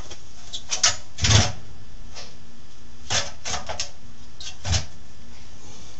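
Metal clanks and knocks from parts being handled inside the rusty steel base of an old Craftsman radial arm saw: a handful of sharp clicks, the loudest a heavy thud about a second in, then a few more around three seconds and one near five.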